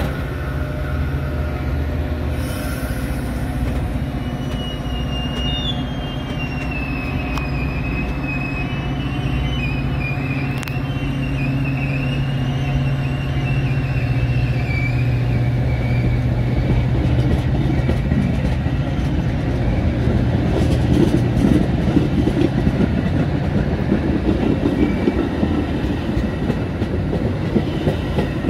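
Metra commuter train of bi-level gallery cars pulling out and rolling past, gathering speed: a steady low hum under the wheel noise, a thin wavering wheel squeal through the middle, and a growing rumble with quick clacks of wheels over the rails near the end.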